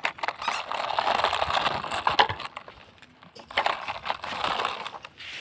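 Plastic wheels of a toy tractor rolling and crunching over gritty dirt and small stones, in two stretches: a longer one at the start and a shorter one from about three and a half seconds in.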